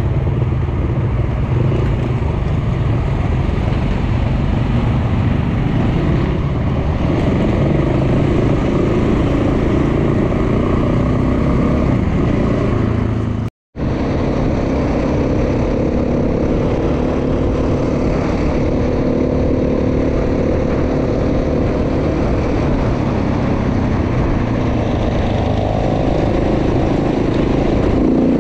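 Off-road enduro motorcycle engine running under way, heard from on the moving bike, with its pitch climbing near the end. The sound cuts out for a moment about halfway through.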